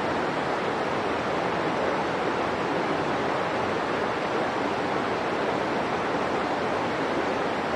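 Steady, even rushing noise with no change in level, like running water; no monkey calls are heard.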